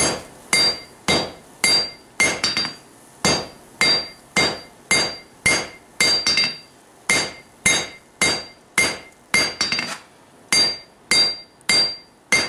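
Hand hammer, which he calls his four-pound, striking a white-hot steel billet on an anvil at forge-welding heat, about two blows a second. Each blow carries a short metallic ring, with a brief pause twice.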